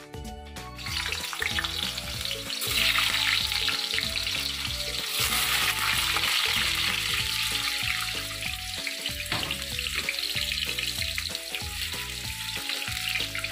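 Potato pieces frying in hot oil in a stainless steel kadai, a loud sizzle that starts about a second in and grows stronger a couple of seconds later, over background music.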